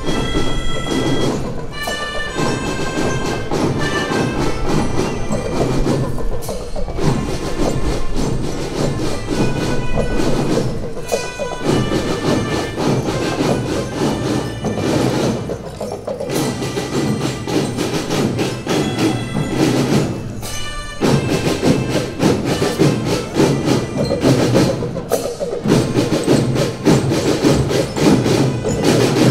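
A children's marching band playing: snare drums beating a steady rhythm under bell lyres ringing out the melody, with melodicas blown along.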